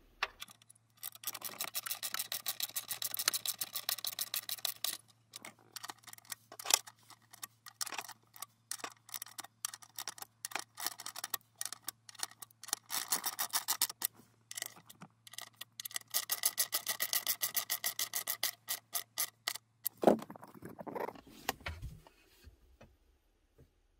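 Hand socket ratchet clicking as it tightens screws: several runs of fast, even clicks with scattered single clicks between. A few louder knocks near the end.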